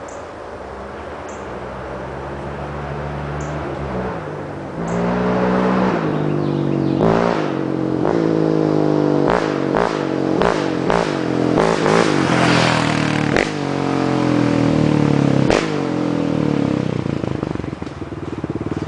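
Yamaha Raptor 700R ATV's single-cylinder engine approaching at full throttle, its revs climbing again and again and breaking off sharply at each gear shift, then passing close by and falling away near the end.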